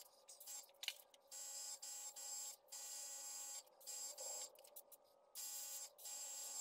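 Airbrush hissing in short bursts as its trigger is pressed and released, several spurts of about a second each with brief pauses between, while fine camouflage outlines are sprayed on a rifle.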